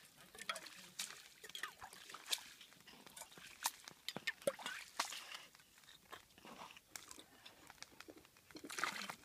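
Irregular crunching and clicking of broken lake ice as chunks are scooped out of a hole in the ice by hand and with a mug; the hole has clogged with ice.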